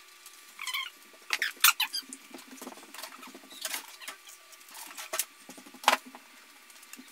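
Close mouth sounds of someone chewing a toasted sandwich: irregular small clicks, smacks and squeaks, with a few sharper ones between one and two seconds in and about six seconds in.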